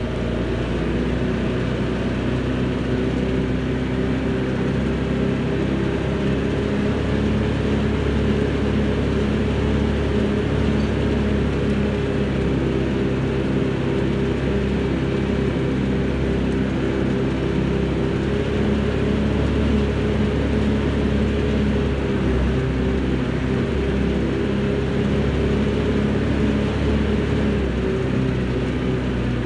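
Log skidder's diesel engine running steadily under way, heard from inside the operator's cab.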